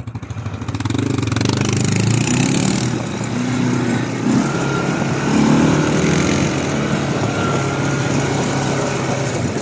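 Single-cylinder ATV engine running as the quad rides along a track, the sound building over the first second and then holding steady, with a hiss of wind and tyre noise over it.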